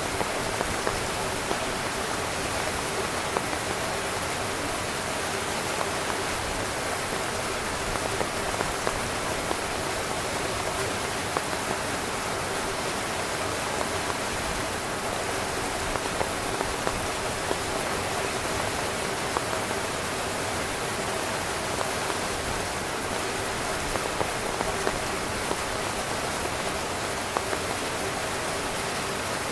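Heavy rain falling steadily on a tent's fabric, a dense even hiss with scattered louder drop hits.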